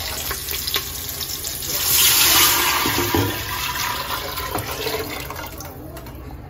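Rasam liquid poured from a metal bowl into a pot of hot frying onions, chillies and curry leaves: a loud rushing hiss and splash swells about two seconds in, then fades as the pour ends.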